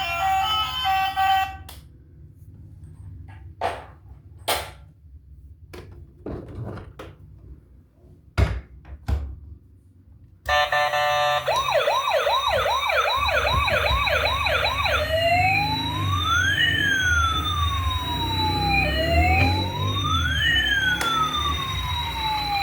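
Electronic emergency siren switching on abruptly about halfway in, first a rapid yelp of quick repeated sweeps, then two slow rising-and-falling wails. Before it, a few sharp clicks and knocks over quiet, after a brief snatch of music at the start.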